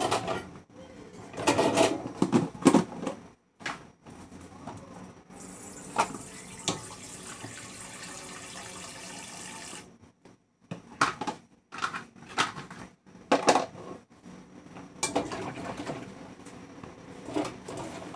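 Washing up at a kitchen sink: a plastic colander and kitchen utensils clatter and knock. A tap runs with a steady hiss for about five seconds in the middle, and the clatter resumes after it stops.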